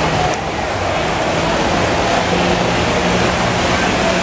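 Water jetpack in use: a steady rush of water jets spraying onto the river, with the hum of the pump engine that feeds the hose running underneath.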